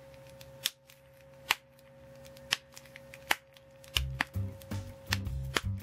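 Tape-covered paper 'cracking' squishy crackling as it is squeezed in the hand: sharp separate cracks about once a second, coming faster near the end. Background music with a low bass line comes in about four seconds in.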